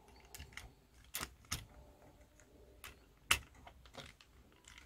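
Plastic parts of a small transforming toy robot clicking and tapping as they are handled and pushed into place, a stiff part not yet seating. A handful of sharp, scattered clicks, the loudest about three seconds in.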